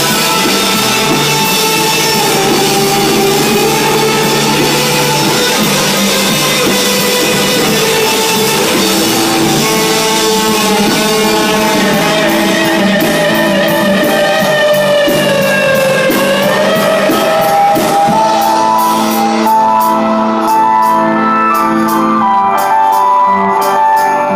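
Loud live rock band playing, with electric guitar holding long distorted tones. Around the middle several pitches slide down and back up, and in the last few seconds a fast pulsing beat comes in.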